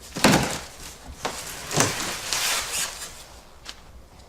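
Cardboard shipping box and packing being handled around a scooter: a few bouts of scraping and rustling, some starting with a thump.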